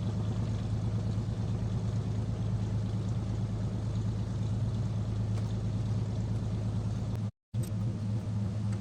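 Diesel engine idling steadily, with a brief total dropout of sound near the end.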